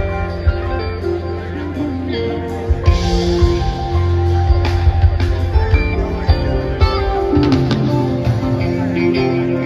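Live rock band playing an instrumental passage on electric guitars, bass, keyboards and drums: held notes over a strong bass line, with scattered drum hits.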